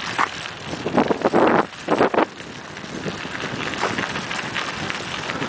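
Three-wheel dryland rig rolling fast over a paved path behind two running dogs, with wind buffeting the microphone. Loud gusts of wind noise come in the first two seconds, then a steadier rolling rush.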